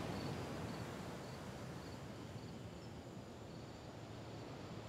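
Crickets chirping faintly, short high chirps repeating about twice a second, over a steady low outdoor rumble.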